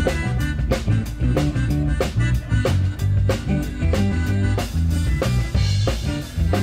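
Upbeat background music with a steady drum beat and a bass line.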